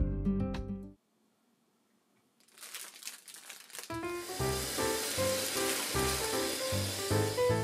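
Plastic bag of bean sprouts crinkling as it is handled, then tap water running steadily into a stainless mesh strainer as the sprouts are tipped in, with light piano music over it.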